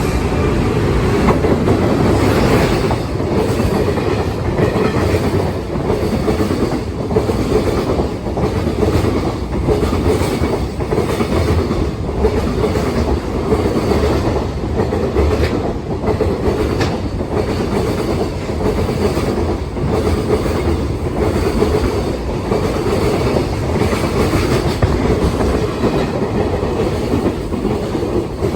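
Container freight train of Koki flat wagons rolling past without stopping: a steady, loud rumble of steel wheels with repeated clacks over the rail joints, fading right at the end as the last wagons go by.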